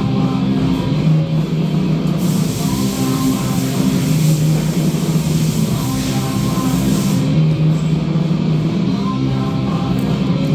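Rock music with distorted electric guitar and drums, with a burst of cymbal-like hiss from about two to seven seconds in.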